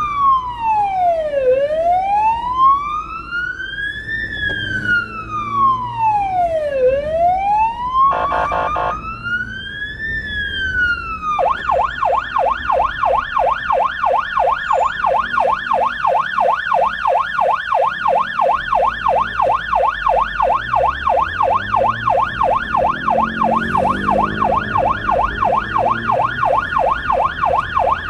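Electronic emergency siren of the blood-transport car, heard from inside the car. It starts as a slow wail rising and falling about every five seconds, broken by a brief steady buzzing blast about eight seconds in. Near twelve seconds it switches to a fast yelp that keeps going.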